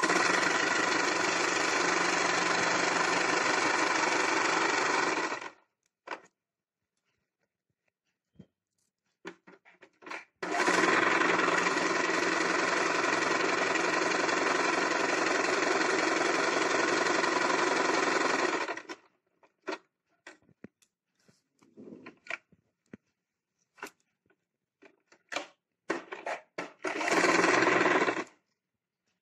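Domestic electric sewing machine stitching fabric in three runs: about five seconds, then a longer run of about eight seconds, then a short run near the end. Between runs it stops, leaving only scattered small clicks of the cloth and machine being handled.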